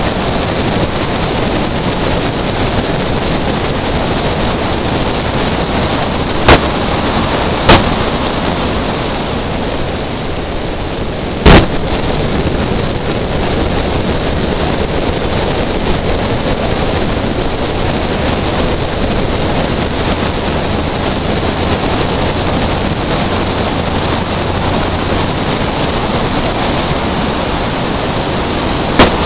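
Wind rushing over a microphone on the bonnet of a moving BMW drift car, a steady roar with the car's running noise beneath. Four sharp bangs cut through it: two about a second apart early in the run, a louder one a few seconds later, and one near the end.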